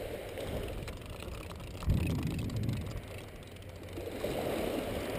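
Wind rumbling on a GoPro's microphone, swelling and fading, with a sharp bump about two seconds in.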